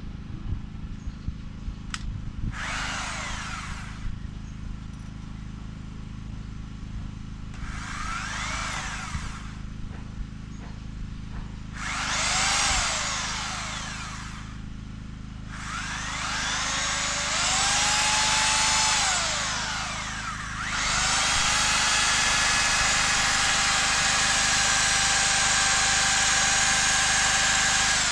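Electric drill boring mounting holes, run in five separate bursts, its motor whining up to speed and winding down each time. The last run is long and steady, lasting about seven seconds.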